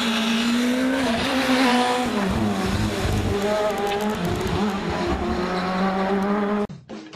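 Škoda Fabia S2000 rally car's engine working hard through a hairpin. The revs dip about two seconds in as it slows for the bend, then climb again as it accelerates away. Near the end the engine sound cuts off suddenly and music with a drum beat starts.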